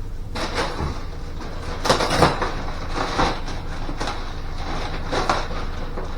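Irregular rustling and knocking as a cloth portable sauna's pipe frame is worked into its fabric waterproof layer, with a few louder handling noises about two and five seconds in, over a steady low hum.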